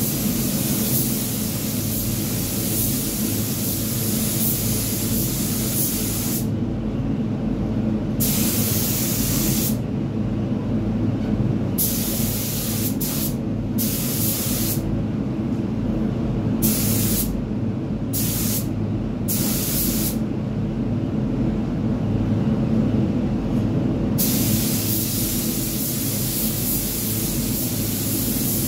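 Hiss of a gravity-feed automotive spray gun over a steady low hum of spray-booth ventilation. The gun sprays continuously at first, is triggered in short bursts of about a second from about six seconds in, stops for a few seconds, and sprays steadily again for the last few seconds.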